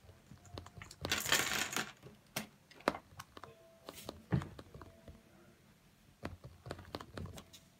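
Fingers tapping rapidly on a tablet's touchscreen keyboard: a quick, irregular run of soft taps and clicks. A brief rustling noise comes about a second in.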